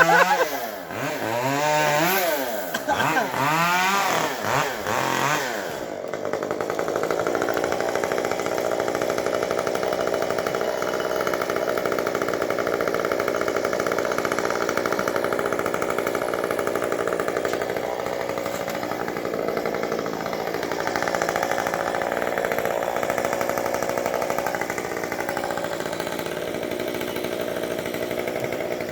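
Two-stroke chainsaw revved up and down several times, then held at high speed running steadily from about six seconds in.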